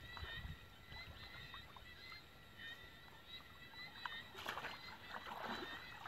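Water swishing and splashing as people wade through thigh-deep muddy water, with louder splashes about four and a half and five and a half seconds in.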